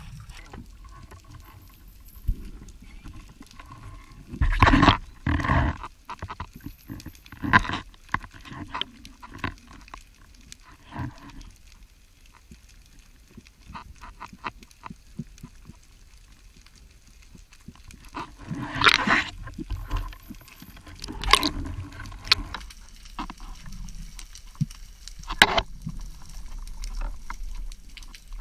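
Muffled underwater sound picked up through a camera housing during a freedive: a low steady rumble of water, broken by irregular bursts of rustling, knocking and scraping as the diver and his speargun move, the strongest a few seconds in and again past the middle.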